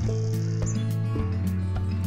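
Upbeat intro theme music with a steady beat and sustained bass notes, and a short high chirp about two-thirds of a second in.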